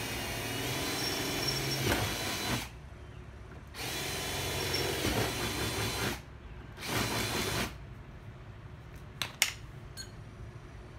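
Compact cordless drill running in three bursts, the first about three seconds long and the last short, drilling holes through the UTV's plastic body panel. A few sharp clicks and knocks follow near the end.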